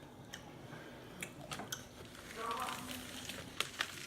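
Close-up eating sounds: chewing with several sharp clicks, and a short voice-like sound about two and a half seconds in.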